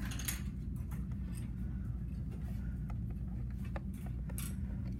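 Steady low electrical or room hum, with a few faint light ticks and scratches of a pen on paper.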